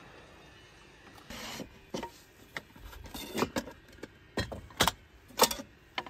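Handling a thin board in a plywood kitchen box: a short scrape, then half a dozen light, irregular knocks and clatters of wood against wood as the board is slid and lifted out.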